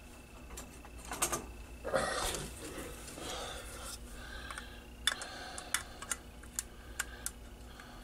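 Small irregular clicks and taps of hands handling a bare circuit board and a small metal hand tool on a workbench, with a stretch of soft rustling in the first half.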